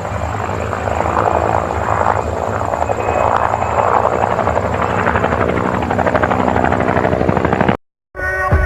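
Helicopter rotor chopping rapidly and steadily, swelling and fading in slow waves, cut off suddenly near the end, followed by music starting up.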